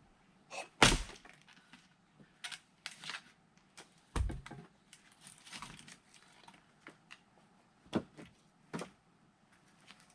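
Firewood being split with an axe: a sharp, ringing crack of a strike about a second in, the loudest sound, then a heavy dull thud around four seconds in and another sharp knock near eight seconds, with lighter clacks of wood between.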